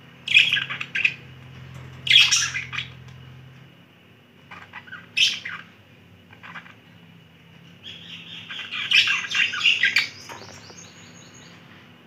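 Budgerigars chirping: a few short bright chirps in separate bursts, then a longer run of fast warbling chatter in the last few seconds.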